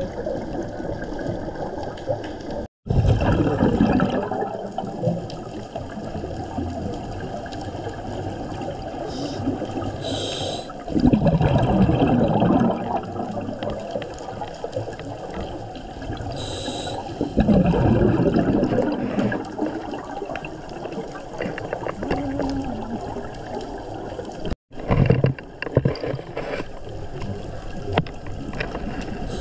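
Scuba diver breathing through a regulator underwater: loud bursts of exhaled bubbles every six to eight seconds, some preceded by a short hiss of inhalation, over a steady underwater hiss. The sound cuts out briefly twice.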